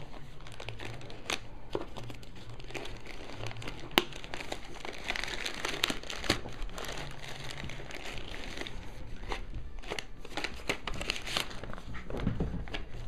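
Plastic shipping mailer crinkling and rustling as it is opened and handled by hand, with many small crackling clicks and one sharper click about four seconds in.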